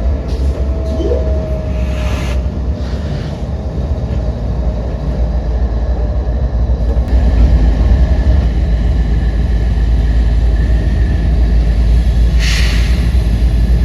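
Freight train rolling past with a steady, heavy low rumble. A brief hiss of noise comes about two seconds in and again near the end.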